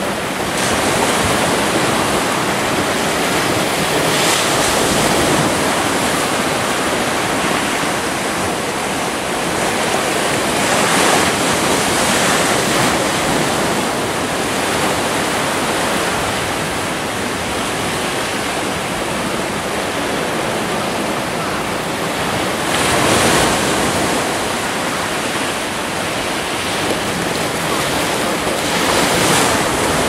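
Sea waves breaking and washing among rocks on the shore: a continuous rushing surf that surges louder every several seconds, most strongly about two-thirds of the way through.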